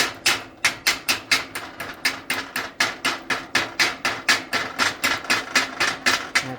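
Chipping hammer striking the slag on a dual shield flux-core weld bead, about five quick sharp strikes a second, knocking the slag off.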